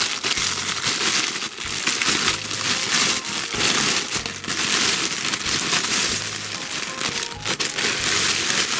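Clear plastic film wrapping crinkling and crackling continuously as it is pulled and crumpled off a plush pillow by hand.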